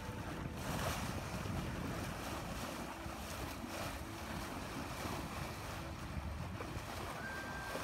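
Wind buffeting the microphone over the steady rush of water along the hull of a sailboat under sail.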